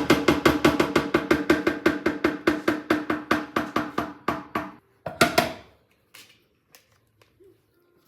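A fast, even run of pitched percussive knocks, about five a second, lasting about five seconds, followed by two more knocks and then quiet.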